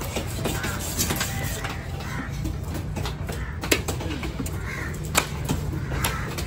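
Crows cawing a few times over a steady low rumble of market noise, with a few sharp knocks, two of them the loudest sounds.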